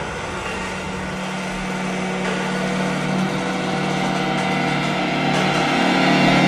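Low sustained drone from a horror film score: a steady, buzzy hum that slowly grows louder, building tension.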